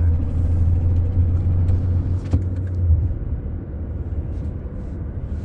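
Inside a moving car: a low rumble of engine and road noise. The drone eases off about three seconds in, just after a single sharp click.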